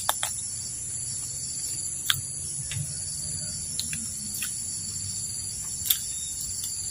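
Steady high-pitched chorus of forest insects, crickets or cicadas, shrilling without pause, with a few sharp clicks close by, the loudest about two and six seconds in.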